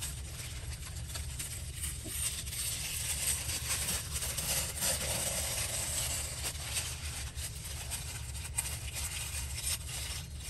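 Soft rustling of paper scraps being handled and laid down, over a steady low electrical hum and hiss.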